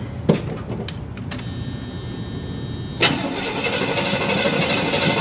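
1984 Chevrolet K20 pickup's carbureted engine being started with the key: a click, then the starter cranking for about a second and a half, until the engine catches about three seconds in and keeps running, slowly getting louder.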